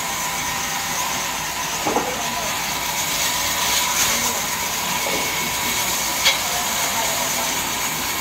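Sawmill band saw running with a steady hiss and a constant high whine, with one short knock about six seconds in.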